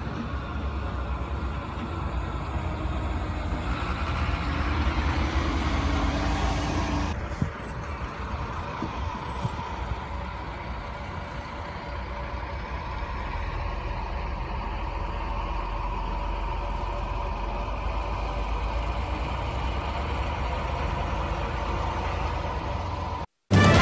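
A vehicle engine running steadily with a low rumble, and one sharp crack about seven and a half seconds in.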